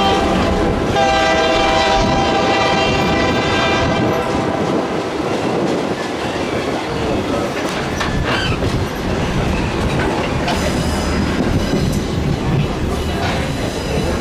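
Baldwin 2-8-0 steam locomotive's whistle sounding one chord-like blast of about three seconds, starting about a second in. Under it the train runs on with a steady rumble and clickety-clack of wheels on rail joints.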